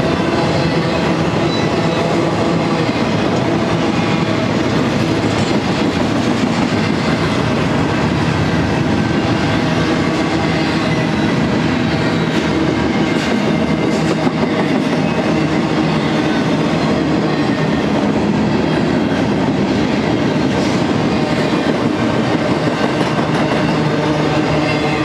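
Double-stack intermodal container cars of a freight train rolling past close by, a loud, steady noise of steel wheels running over the rails.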